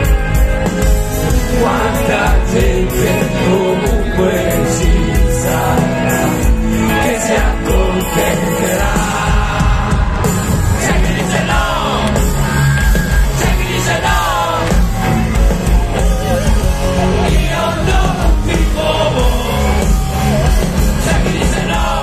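Live rock band playing loud through a big PA: electric guitar and drums, with a voice singing over them.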